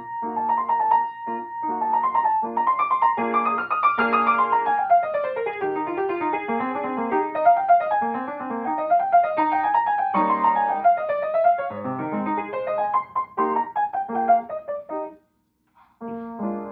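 Upright piano played solo in a fast classical piece, quick rising and falling runs over repeated chords. The playing stops briefly near the end, then resumes.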